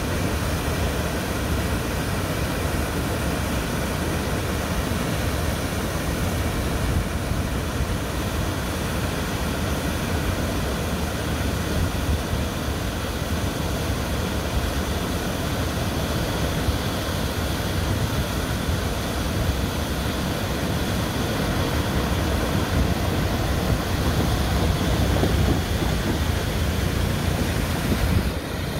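Steady road and engine noise of a Mitsubishi Pajero Full driving at speed on a highway.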